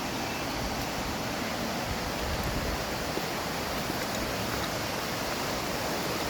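Flowing water rushing steadily, as of a mountain stream.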